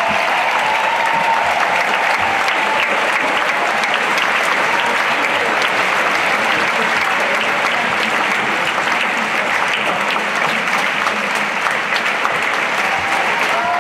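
Large audience applauding steadily, a dense, even ovation of many hands clapping.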